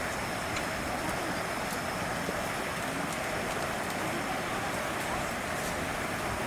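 Steady background hiss, even throughout, with a faint high steady tone and faint murmur of distant voices.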